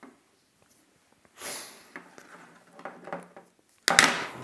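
Small handling noises from taking apart a plastic sewing-machine foot controller: a short breathy noise about a second and a half in, a few light clicks and rustles, then a sharp clack near the end as a pair of pliers is picked up from the table.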